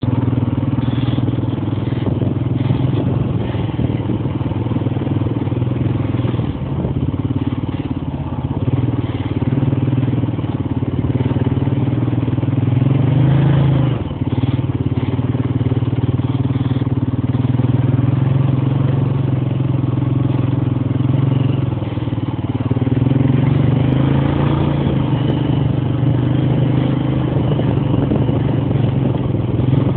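Honda Rancher ATV's single-cylinder four-stroke engine running on and off the throttle while riding through mud, its pitch climbing about thirteen seconds in, then dropping sharply a moment later.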